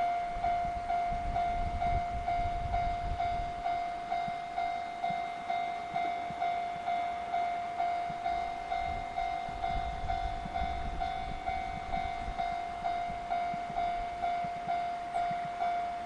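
Japanese level crossing's electronic warning bell ringing in a steady, even rhythm of about two dings a second, signalling that a train is approaching and the barriers are down. A low rumble swells and fades underneath.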